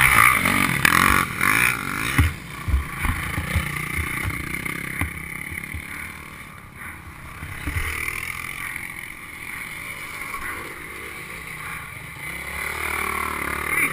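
Dirt bike engines running, with low knocks and bumps in the first few seconds.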